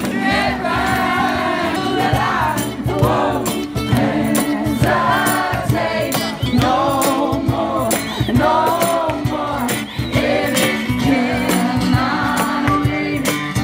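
Live street music: a singer over guitar and a steady beat, loud and unbroken.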